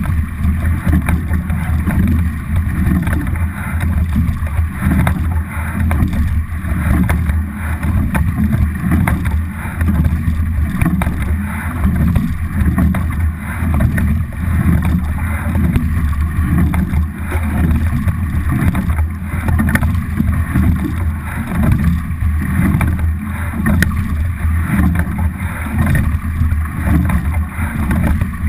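Steady rush of water along the hull of a racing double scull under way, with wind rumbling on the boat-mounted camera's microphone.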